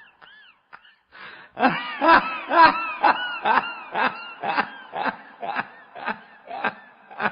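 Hard, wheezy laughter sound effect: a short pause, then a run of 'ha' bursts about two a second, loudest early in the run and slowly weakening.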